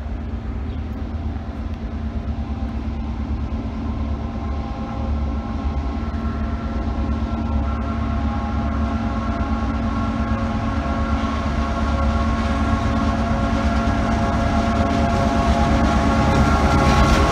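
Diesel-electric locomotives led by S-class streamliner S312 hauling a grain train approach, their engines making a steady low drone that grows gradually louder as they draw near.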